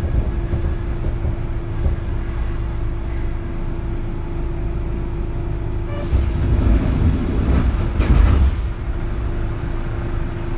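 Kintetsu 3200 series electric train running, heard from inside a motor car: a steady hum over the rumble of wheels on track. The rumble grows louder about six seconds in, with two sharp clicks about six and eight seconds in.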